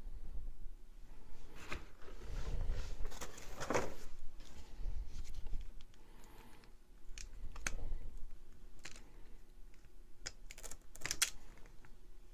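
Small hand-work sounds close to the microphone: wires and a spade connector being handled and crimped with a Vise-Grip hand crimping tool, giving scattered sharp clicks, rustles and soft knocks, with a cluster of clicks in the second half.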